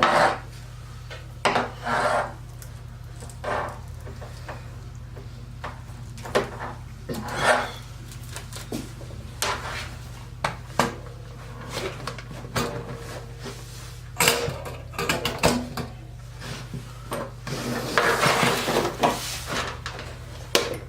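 Hard objects being handled on a workbench: scattered clicks, taps and knocks with some rubbing and rustling, busiest near the end, over a steady low hum.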